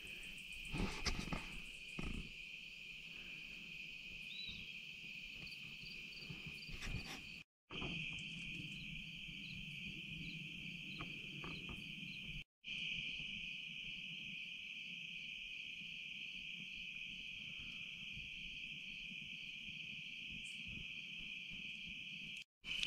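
Night insect chorus of crickets: a steady high-pitched drone with a fainter, evenly repeating chirp above it. The sound breaks off to silence for a moment three times.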